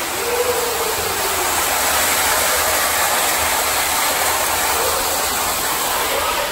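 Artificial waterfall pouring in a curtain across a cave opening: a steady rush of falling water heard from inside the cave, growing louder about two seconds in.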